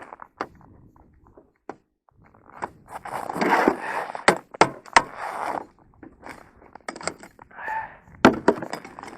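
Handling noises on the ice: scraping and crunching with sharp clicks and knocks, coming in a busy stretch about three to five seconds in and again near the end.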